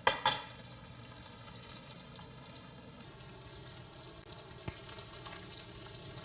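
Food frying in a pan on a gas stove: a steady sizzle, with a spatula stirring and scraping in the pan. Two sharp knocks about a quarter of a second apart open the sound, the loudest thing heard.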